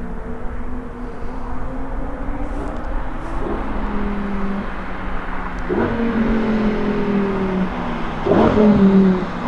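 Lamborghini Huracan STO's naturally aspirated V10 running hard on track, its pitch climbing and then breaking off and dropping several times, as with gear changes or the car passing by. It is loudest about a second before the end.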